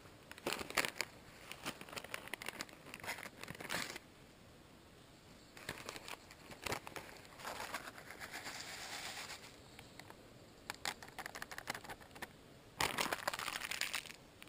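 A plastic pasta packet crinkling in several bursts as it is handled, with its dry contents poured into a pot of water on a camp stove around the middle.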